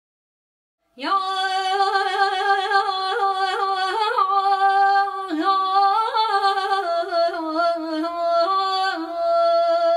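Opening title music: a single unaccompanied melody, ornamented with quick trills and pitch slides, starting about a second in.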